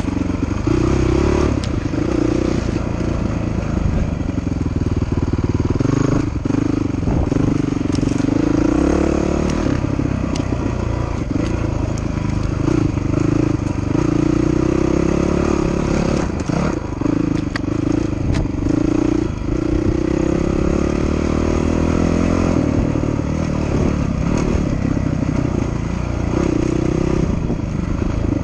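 Dirt bike engine heard from on board, its note rising and falling with the throttle as it rides a rough trail. Occasional brief knocks and clatter from the ride over the ground.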